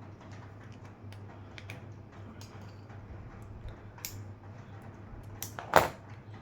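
Wire stripper working the insulation off a thin jumper wire: scattered small clicks and handling noises, with one loud sharp snap near the end as the jaws close or the insulation pulls free. A low steady hum runs underneath.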